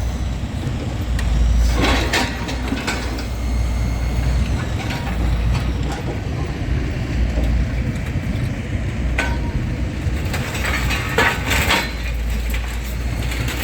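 Heavy engine running with a steady low rumble, with scrap metal clanking and scraping a few times, about two seconds in and again near the end.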